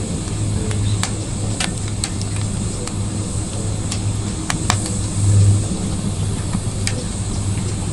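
Wood fire burning in a Petromax LOKI wood stove: sharp, irregular crackles and pops over a steady low rumble.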